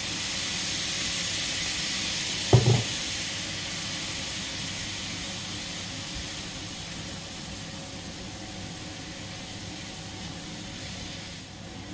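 White wine sizzling and hissing in a hot frying pan of vegetables, pearl barley and beans as it is stirred, the hiss slowly dying down as the wine boils off in steam. A single thud about two and a half seconds in.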